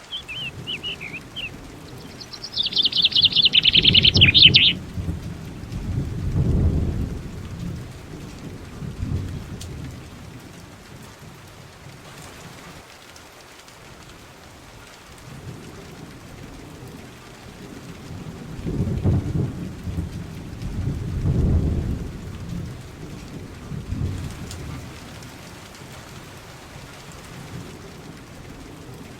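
Steady rain with low rolling thunder that swells twice. A bird's fast, high chirping trill sounds over it in the first few seconds.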